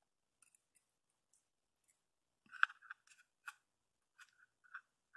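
Faint clicks and taps of fine-tipped metal tweezers picking up a small screw and setting it into a mounting hole of a plastic enclosure. There are a few tiny ticks at first, the loudest click a little over halfway through, and more small clicks near the end.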